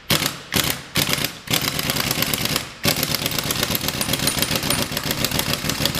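Corded electric impact wrench run in reverse, hammering a spring compressor's threaded rod loose on a car's front strut: a few short blips, then a long run of rapid hammering with one brief pause about three seconds in.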